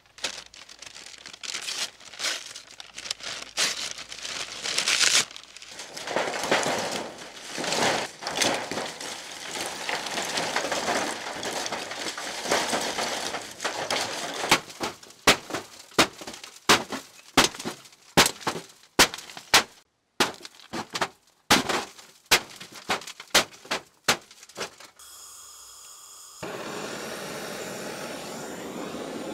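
Lumps of charcoal pouring and clattering into a wire-mesh metal firebox, with a run of sharp separate knocks and cracks as chunks drop and hit one another. Near the end a handheld gas blowtorch starts with a hiss and then runs with a steady rushing noise, as it lights the charcoal.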